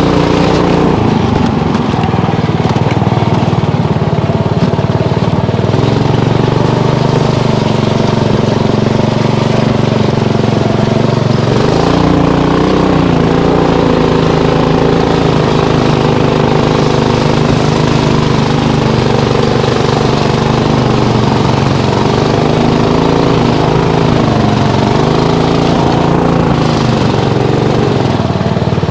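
Engine of a small off-road vehicle running under way, loud and continuous, its pitch rising and falling as the throttle changes, about twelve seconds in and twice more near the end.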